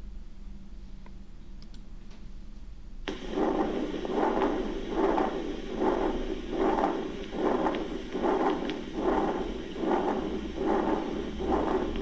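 Recorded heart sounds of a patent ductus arteriosus, starting about three seconds in: a continuous rushing murmur that swells with each heartbeat, a little more than once a second, and does not die away between beats.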